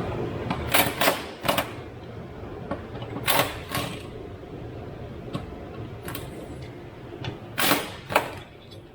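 Sharp metallic clacks and clinks of hand tools and steel parts being handled under a car, in clusters of two or three strokes.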